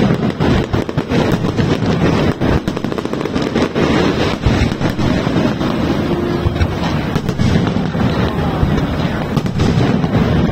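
Fireworks going off in rapid succession: a continuous stream of bangs and crackles over a steady rumble.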